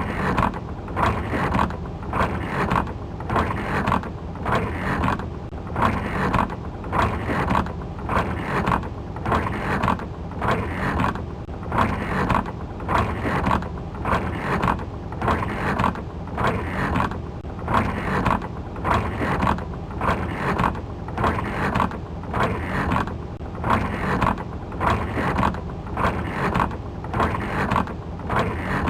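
Windshield wipers sweeping back and forth, heard from inside the car: an even run of strokes a little slower than one a second over a steady low hum.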